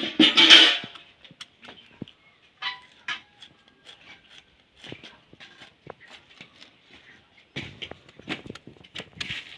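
Knife slicing a hand-held banana flower: irregular short, crisp snicks as the blade cuts through the layers, with a louder rustle at the very start.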